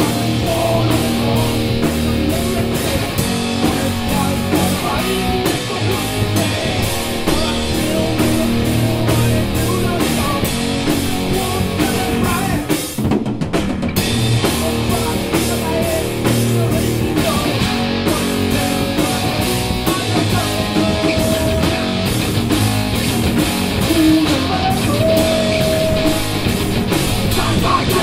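A live heavy metal band playing a cover: distorted electric guitars, bass guitar and a drum kit with crashing cymbals. The cymbals drop out for a moment about halfway through.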